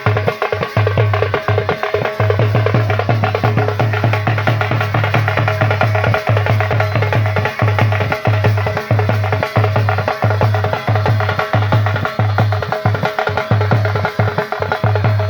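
Loud band music during a sound check: a fast, dense drum beat over a heavy repeating bass line.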